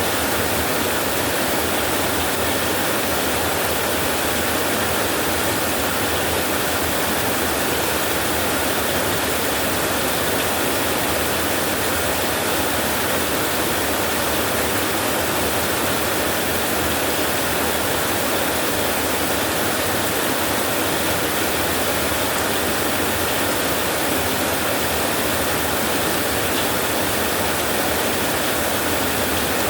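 Steady rain falling on a tin roof, one even unbroken hiss with no thunder.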